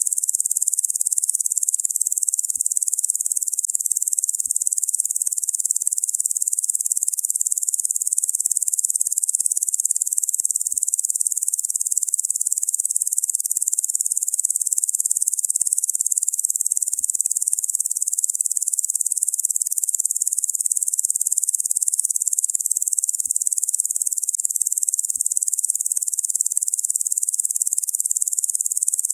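Locusts buzzing in a steady, dense, high-pitched chorus with no pauses or pulses.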